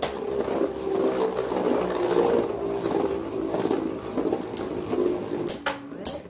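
Two Beyblade tops, Fang Pegasus 90CS and Flash Phoenix 100R2F, spinning on the plastic floor of a Beyblade Burst stadium with a steady whirring, scraping hum. Sharp clacks as they strike each other come a few times near the end.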